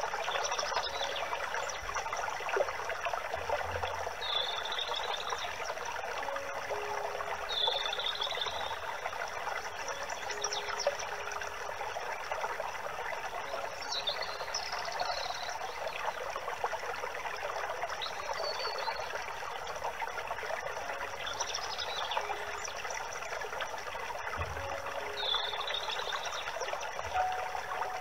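A stream of running water trickling steadily, with a bird giving short high chirps every few seconds.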